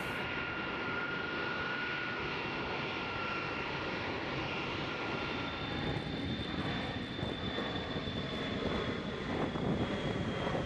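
Jet engine noise from a KC-135 Stratotanker's CFM F108 turbofans: a steady rush with a thin whine while taxiing, then, about halfway through, a higher whine as the jet makes its takeoff run.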